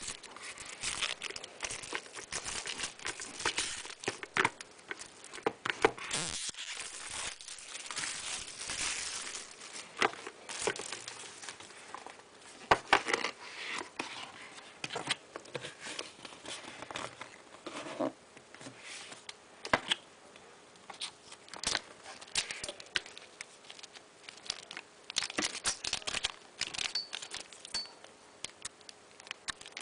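Packaging being opened and handled: plastic and cardboard crinkling, rustling and tearing, with irregular clicks and taps.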